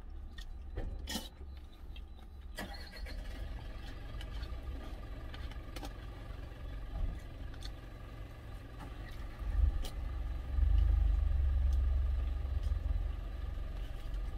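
Engines of delivery trucks pulling away close by: a steady low rumble that swells much louder about ten seconds in. A few light clicks of a plastic spoon against a plastic food container come in the first few seconds.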